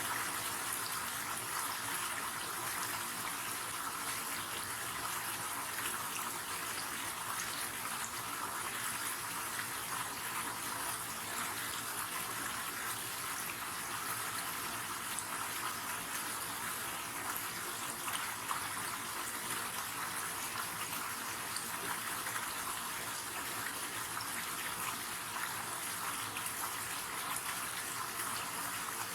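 River water running steadily: an even, hissy rush with little low rumble and no breaks.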